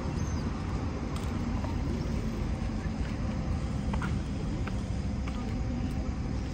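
Steady road traffic noise, a low rumble of passing cars, with a few faint clicks in the second half.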